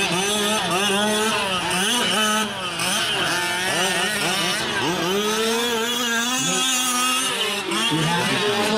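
Small two-stroke gas engines of several 1/5-scale RC trucks racing, their pitches rising and falling constantly and overlapping one another.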